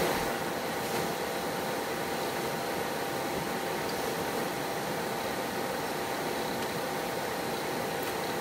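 Steady background hiss of room noise with a faint constant tone, unchanging throughout.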